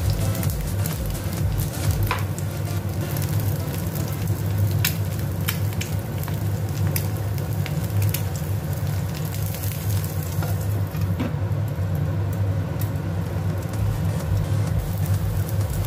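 Eggs and bell pepper rings sizzling in hot oil in a frying pan, a steady hiss scattered with small crackling pops, over a steady low hum.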